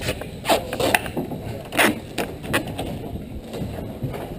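Irregular knocks and clatter of boots and gear on the boarding ladder and the metal cabin floor of a C-47 Dakota, about six in the first three seconds, then quieter.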